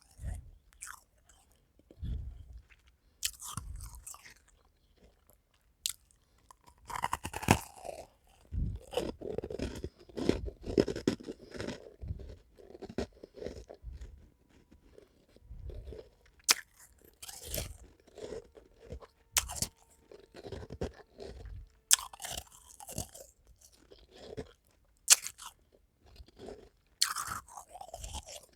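A person biting and chewing white freezer ice, close up: sharp crunches at uneven intervals, with stretches of rapid chewing between quieter pauses.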